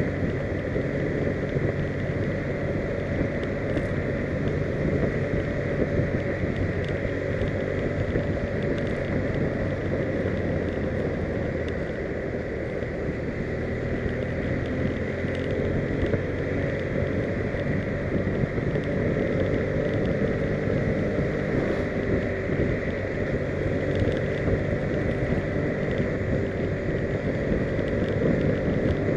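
Engine and road noise of a vehicle driving steadily along a road, with wind on the microphone; the engine's pitch stays much the same throughout.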